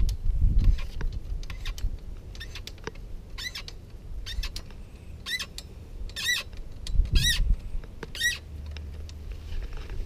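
Short, high squeaks, about one a second from a few seconds in, each bending up and down in pitch, among light clicks and a few dull knocks of parts being handled.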